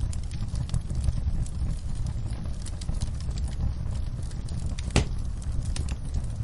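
Wood fire crackling in a fireplace: a steady low rumble of the flames under frequent small pops and snaps, with one louder pop about five seconds in.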